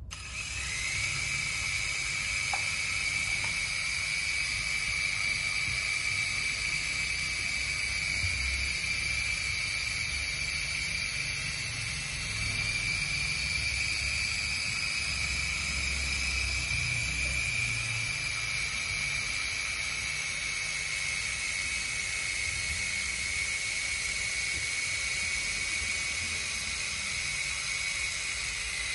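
Toy RC helicopter's small electric rotor motors spinning up with a short rising whine, then running steadily with a high whine and the whir of the blades.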